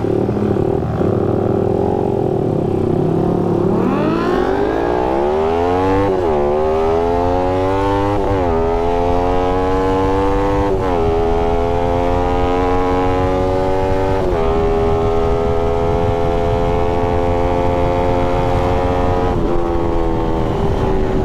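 Suzuki Satria FU 150's single-cylinder four-stroke engine, heard from the rider's seat, pulling away hard about four seconds in. It revs up through the gears, and the pitch drops at each of five upshifts; the later gears are held longer.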